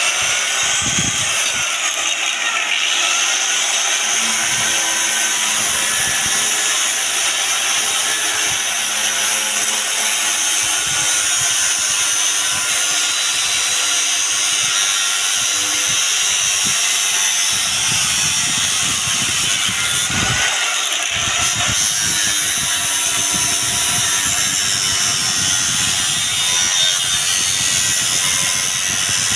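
Angle grinder running continuously with a DVD disc fitted in place of its cutting disc, giving a steady high-pitched whirring hiss. A rougher, fuller noise comes in a little past halfway.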